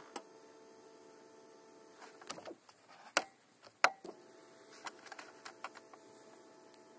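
Faint steady hum, twice for a few seconds each, broken by several sharp clicks, from a 2007 Yamaha Phazer snowmobile that is switched on for a cold start but not yet cranking or running.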